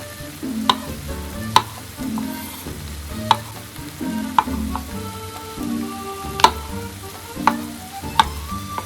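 Food sizzling as it fries in a pan while being stirred, the utensil knocking sharply against the pan about seven times.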